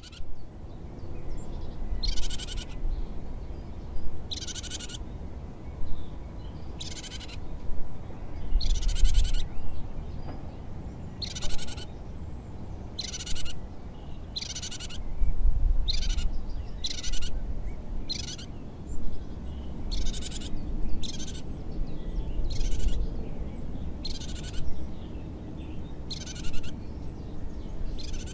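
An animal's short, high, buzzy call repeated every second or two, over a steady low rumble.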